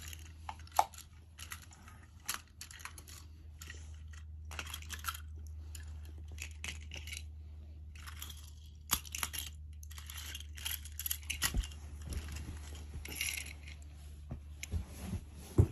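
Small toy trains being handled, knocked together and moved about on a blanket: scattered clicks, clinks and rustles, with a few sharper clacks, over a steady low hum.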